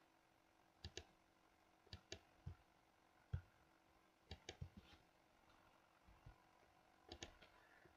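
Faint computer mouse clicks, several in quick press-and-release pairs, spaced irregularly about once a second, over near silence.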